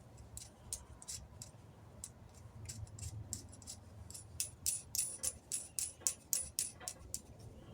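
A run of light, sharp clicks and ticks, scattered at first, then coming quicker and louder, about two or three a second, from about halfway through.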